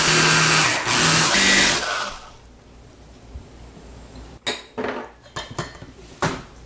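Small food processor motor running as it purées raw chicken, vegetables and mushrooms, dipping briefly twice, then switched off about two seconds in and winding down. After that come a few sharp knocks and clinks from a spatula against the processor bowl and a steel pot as the mixture is scraped out.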